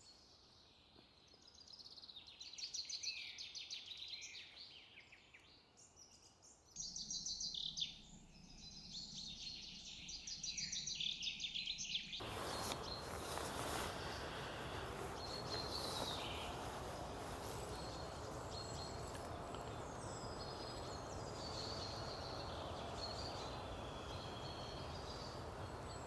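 Small songbirds singing and calling in bare woodland, several short high phrases overlapping. About twelve seconds in the sound changes abruptly to a steady hiss with only a few faint high bird notes.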